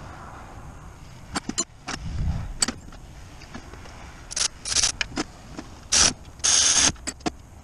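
Cordless electric ratchet running in short bursts while driving bolts on top of a Caterpillar 3116 diesel during reassembly after a valve adjustment, with a few sharp metal clicks and a low knock from tools being handled.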